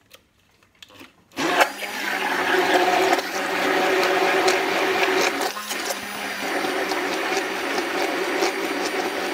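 Hand-held immersion (stick) blender switching on about a second in and running steadily, whirring through eggs, mustard, salt and sugar in a plastic container: the first blend of the mayonnaise base before the oil goes in. Its motor falters briefly a little past the middle.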